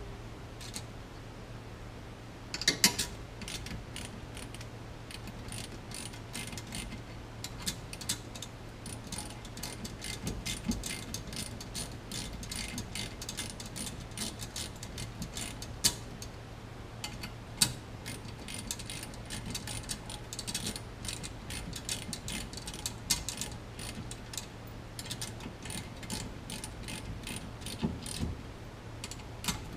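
Hand ratchet clicking in quick runs as small screws are driven into a steering wheel hub, with a few louder sharp clacks, over a steady low hum.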